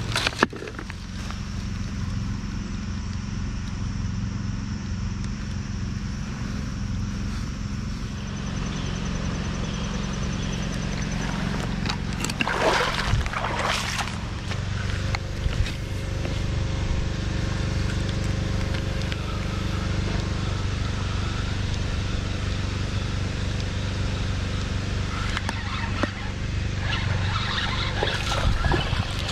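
Creek water running over a shallow rocky riffle, a steady rush, with two louder noisy bursts about twelve to fourteen seconds in.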